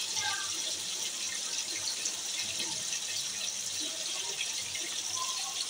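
Chapli kabab patties shallow-frying in ghee in a nonstick pan: a steady sizzle with small crackles.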